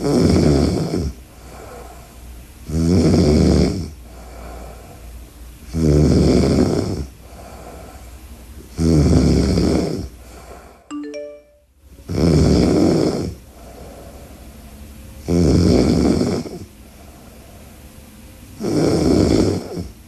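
A woman snoring loudly: a snore about every three seconds, seven in all, with quieter breathing between. About eleven seconds in, a short chime of a few rising notes sounds during a brief gap in the snoring.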